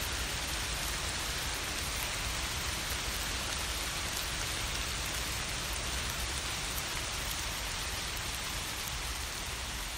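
Summer rain falling steadily, a constant even patter of drops.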